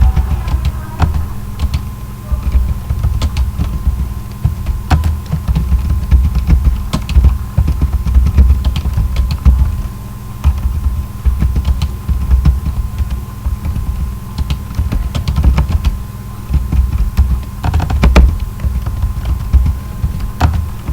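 Typing on a computer keyboard during a timed typing test: a quick, irregular patter of key clicks over a loud, uneven low throbbing hum.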